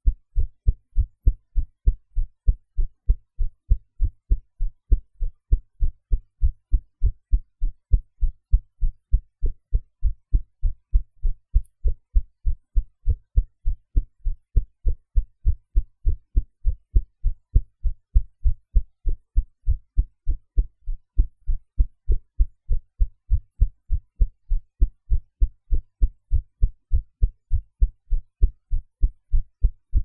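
A woman's own heartbeat, recorded with background noise edited out: a steady, regular run of dull low thumps.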